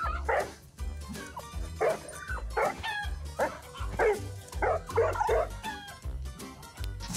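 A young bloodhound yipping and barking over and over, short high calls about twice a second, with a music track's steady bass beat underneath.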